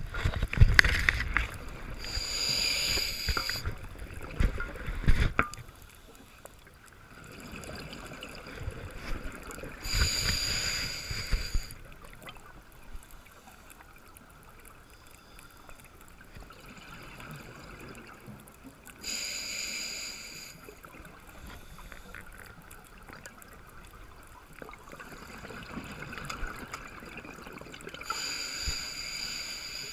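Scuba diver breathing on a regulator, heard through a camera's underwater housing: four hissing inhalations about every nine seconds, with rumbling bursts of exhaled bubbles, loudest in the first half.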